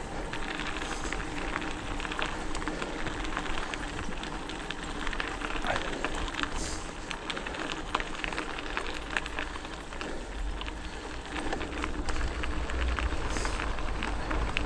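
Hardtail mountain bike rolling over a forest trail: continuous tyre noise on dirt and gravel with frequent rattling clicks from the bike. Wind rumble on the microphone grows stronger near the end.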